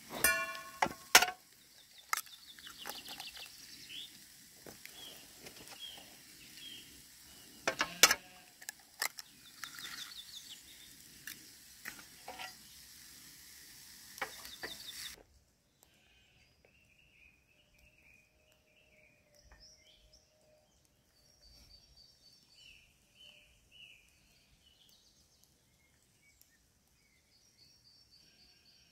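Sharp metal clinks of camp cookware at the start, then a twig-burning wood stove crackling with a steady sizzle from the pan on top. About halfway it cuts to quiet open woodland with faint birds chirping.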